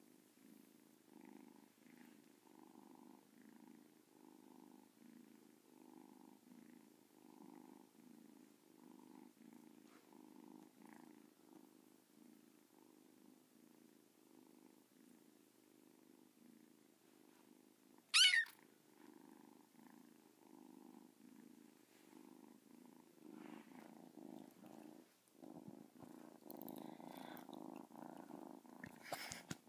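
A kitten purring steadily close to the microphone, swelling and easing with each breath, a little faster than once a second. About eighteen seconds in there is one brief, sharp, high squeak, the loudest sound. Near the end the purring grows louder, with a short rustle.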